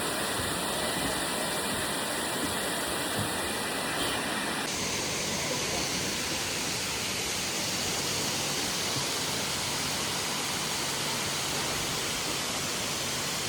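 Waterfall: a steady rush of falling water, its tone changing abruptly about a third of the way in.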